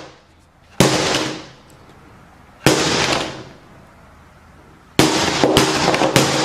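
Loud sudden bangs, each dying away over about a second: one about a second in, one near three seconds, and one at five seconds followed by two more in quick succession.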